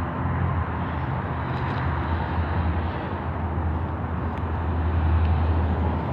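Steady outdoor background noise: a low rumble under an even hiss, swelling a little about five seconds in.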